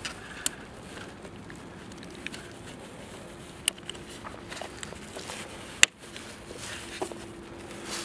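Plastic fuel door latch being handled and pushed into its housing by gloved hands: a handful of sharp clicks and taps, the loudest about six seconds in, over a low steady hiss.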